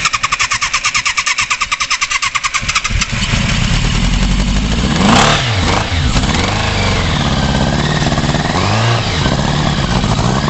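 A cold engine cranked over by its starter with a fast, even beat, catching about three seconds in and settling into a run. The revs then rise and fall twice.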